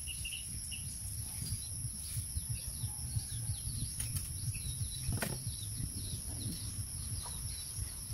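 Steady high-pitched chorus of crickets or other insects, with birds chirping now and then over an uneven low rumble. One sharp click about five seconds in.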